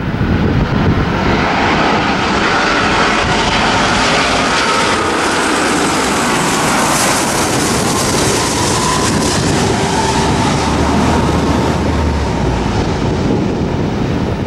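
Airbus A330 twin-engine jetliner on final approach with its landing gear down, passing low overhead: a loud jet roar with a whining tone. The hiss is sharpest around the middle as it goes over, then duller as it moves away.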